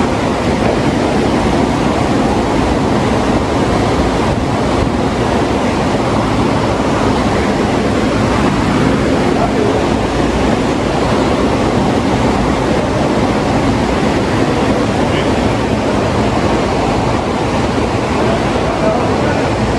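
Wind buffeting a phone microphone outdoors: a steady, loud rushing noise with a low rumble.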